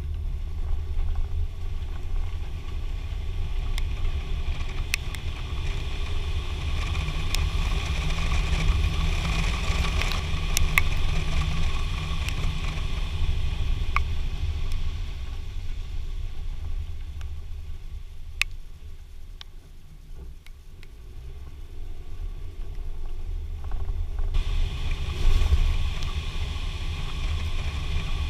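Wind rushing over the microphone and low road rumble from a moving vehicle, with a few scattered ticks. The noise eases about twenty seconds in, then picks up again a few seconds later.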